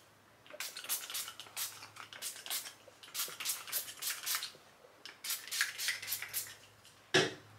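A hand-pumped fine-mist hair gloss spray bottle being spritzed repeatedly, short hissing sprays in quick runs of a few at a time. A short loud thump comes near the end.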